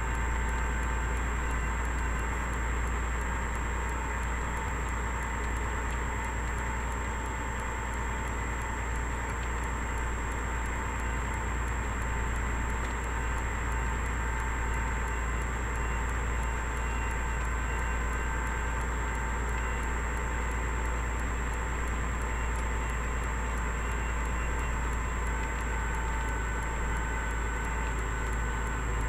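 Kenworth truck driving on a dirt road: a steady low rumble of engine and road noise with a thin constant high whine over it.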